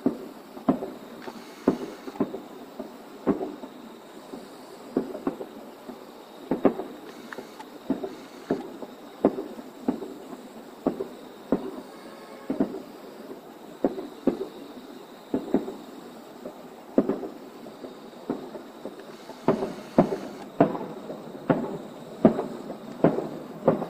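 Rapid barrage of aerial firework shells bursting, sharp bangs about one to two a second, each trailing off in a short echo, coming thicker near the end.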